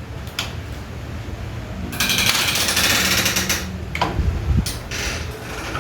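Clicks and a rapid mechanical rattle lasting about a second and a half, from the Sony CDP-C315 five-disc CD changer's disc tray being loaded and handled, over a low hum.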